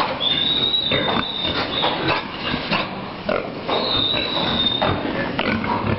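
Pigs coughing over and over in short, harsh coughs: the dry cough that is the typical sign of enzootic pneumonia. A thin, high, steady tone sounds twice, each time for about a second and a half.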